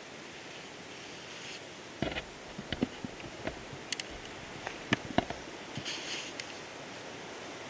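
A run of small sharp clicks and knocks for about three seconds, starting about two seconds in, over a steady hiss.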